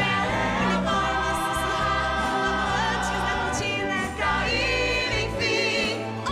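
Musical-theatre cast singing together in chorus over instrumental accompaniment, holding long notes with vibrato.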